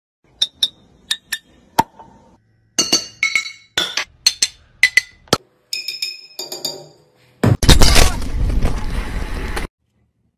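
Glass bottles clinking as they are tapped and struck: a series of sharp, ringing glass clinks in several groups. Near the end comes a loud burst of dense noise lasting about two seconds that cuts off suddenly.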